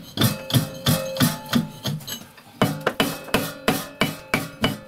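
Repeated sharp hammer blows on the brickwork of a brick house stove, about three to four a second with a short pause about two seconds in, as the stove is opened up to clear its soot-choked flues.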